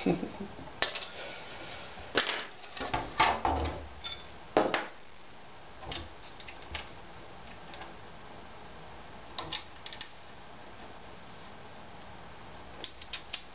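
Small metal hardware (nuts and a hex key) clinking and knocking as it is handled and set down on a G10 sheet and a wooden workbench. The irregular clicks come thickest in the first few seconds, with a few more scattered later and a short cluster near the end.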